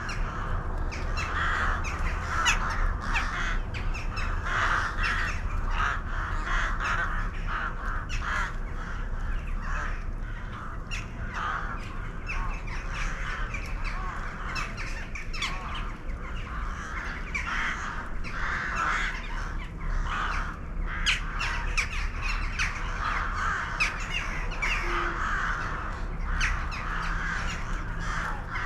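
A flock of birds calling continuously, many short calls overlapping, with scattered sharp clicks among them.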